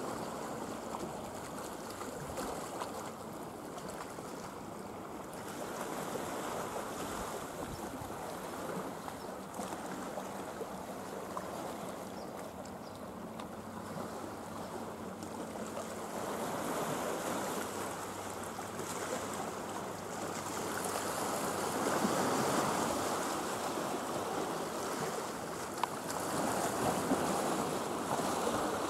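Sea water washing against a stony shore, swelling louder several times in the second half.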